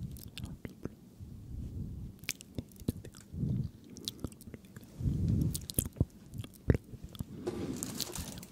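Close-miked ASMR mouth sounds: a run of quick, irregular wet clicks and smacks, with a few low muffled swells and a breathy rush near the end.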